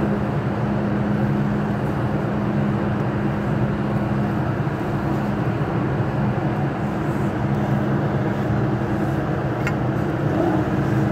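Steady hum and rumble inside an MTR Island Line M-Train car, with a brief faint tone near the end.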